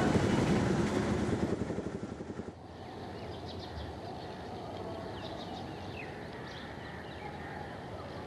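Vehicle and street traffic noise fading out over the first two and a half seconds. It gives way to quieter outdoor ambience with many short bird chirps.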